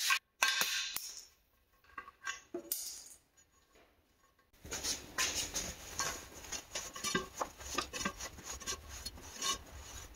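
Metal tools clinking and scraping against a motorcycle wheel and tire during a tire change. Scattered clinks at first, then a quicker, denser run of clatter from about halfway.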